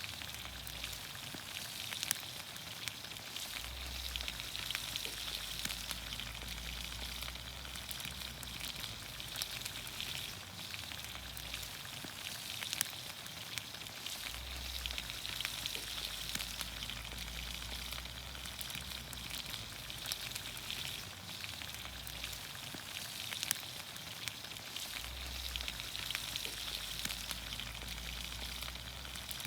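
Vegetables in olive oil sizzling in a pan over a campfire: a steady hiss scattered with small pops and crackles.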